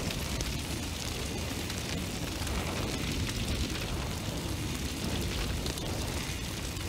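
A steady rushing, rumbling noise with a hiss on top, unchanging throughout, with no beat, voice or separate bangs in it.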